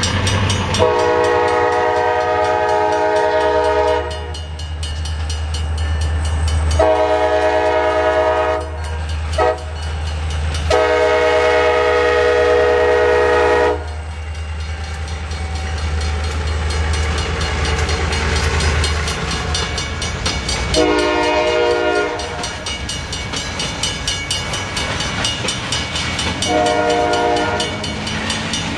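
Diesel locomotive horn sounding the grade-crossing signal as a CSX GP40-2 and GP15-1 pass, in three long blasts with a very short one before the last. Under the horn, the locomotives' EMD diesel engines rumble low. Later the horn gives two shorter blasts while freight cars roll by with a steady clatter of wheels.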